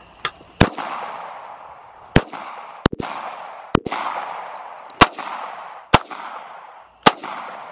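Gunshots: about eight single shots at irregular intervals, two of them almost together, each followed by a long echo that trails away.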